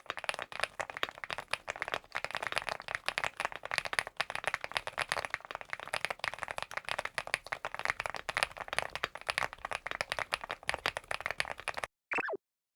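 Fast, continuous typing on a CIDOO V75 Plus gasket-mount mechanical keyboard: a dense stream of key clacks. It stops shortly before the end, followed by a brief falling swoosh.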